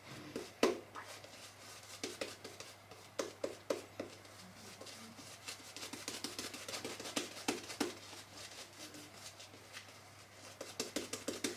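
Badger shaving brush working shaving lather over the face and chin: a faint, irregular crackle of short wet clicks, coming in clusters.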